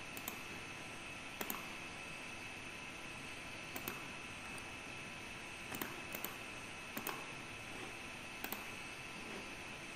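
Computer mouse clicks, scattered every second or two and several in quick pairs, over a steady hiss and a thin high whine from the recording's background noise.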